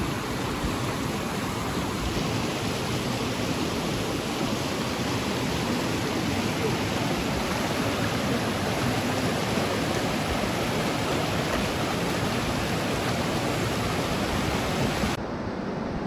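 Creek water rushing, a steady dense hiss. Just before the end it turns abruptly duller and a little quieter.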